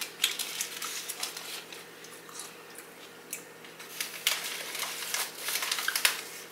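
Close-up chewing of a toasted sub sandwich: wet mouth sounds and small crunches of the bread crust, coming in irregular spurts. Near the end a plastic chip bag crinkles as it is picked up.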